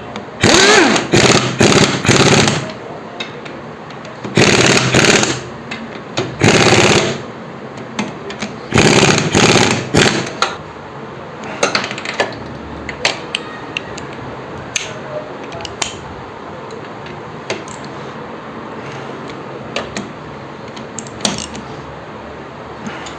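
Cylinder head bolts on a Bajaj Pulsar NS200 engine being tightened with a wrench: four or five loud bursts of rapid tool noise in the first ten seconds, then scattered lighter clicks.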